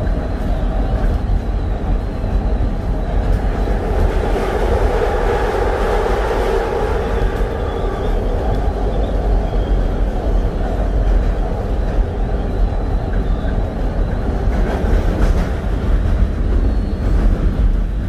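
SEPTA Market-Frankford Line elevated train running on the El tracks, a steady rumble of wheels on rail heard from inside the car. The wheel noise swells louder for a few seconds about four seconds in.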